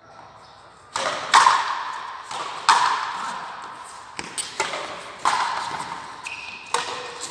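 Frontenis rally: a hard rubber ball struck by tennis-style rackets and smacking off the fronton wall, sharp cracks about every one to two seconds. Each hit rings and echoes in the walled court.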